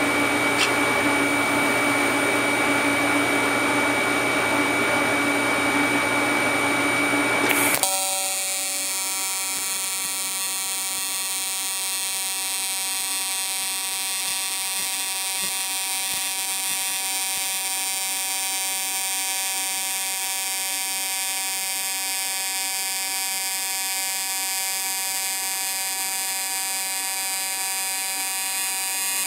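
AC TIG welding arc buzzing steadily while thin 16-gauge aluminum is welded from an HTP Invertig 221. About eight seconds in, the buzz changes to a smoother, evenly pitched hum and drops a little in level.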